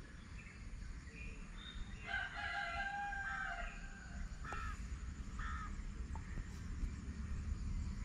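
A rooster crowing: one long crow starting about two seconds in, followed by two short calls, over a steady low rumble.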